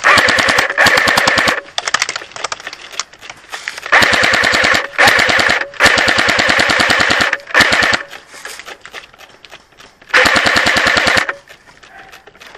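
Airsoft electric gun firing full-auto bursts: rapid, even clicking over a motor and gearbox whine. There are several bursts, the longest about a second and a half, with gaps of a couple of seconds between some of them.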